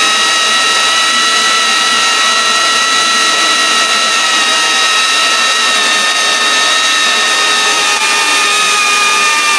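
FPV whoop drone's motors and ducted propellers whining steadily in flight, a high whine with overtones that dips slightly in pitch near the end.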